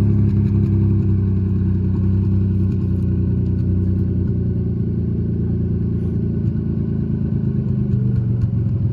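Turbocharged Mazda MX-6 engine idling steadily, running on E85.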